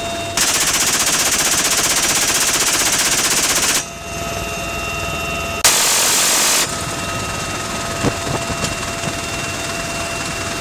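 Door-mounted six-barrel GAU-17/A 7.62 mm minigun firing from a UH-1Y Venom helicopter: one long burst of about three and a half seconds, then, after a short pause, a burst of about one second. The helicopter's steady engine and rotor noise, with its fixed whine, runs underneath and on after the bursts.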